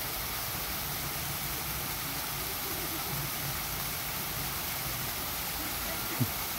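Steady rushing hiss of flowing water in an otter enclosure's pool, with one short sharp knock about six seconds in.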